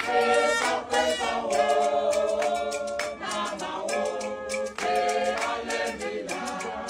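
Background music of several voices singing together, choir-like, with notes held and changing throughout.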